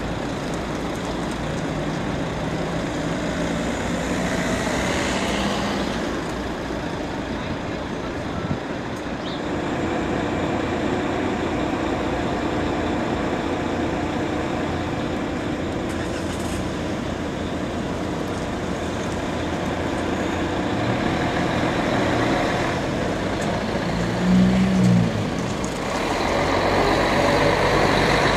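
Diesel engine of an intercity coach running as it moves off and drives slowly through the bus station, over general traffic hum. There is a short louder burst about three-quarters of the way through. The engine grows louder near the end as the coach passes close by.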